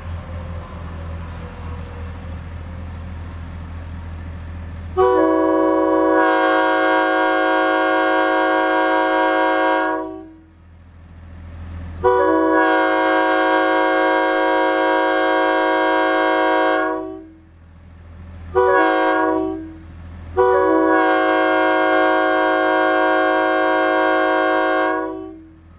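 Nathan K-series locomotive air horn set up as a Leslie SL4T replica, sounding a chord of several steady notes in four blasts. The first two blasts last about five seconds each, then a brief toot, then a final long blast. A low steady hum runs under the first five seconds.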